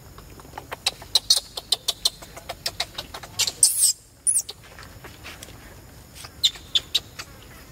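Infant macaque screaming in a tantrum: a rapid string of short, sharp, high squeaks, about three or four a second, breaking into two shrill screams midway, then a few more squeaks near the end. These are the distress cries of a baby whose mother will not let it nurse.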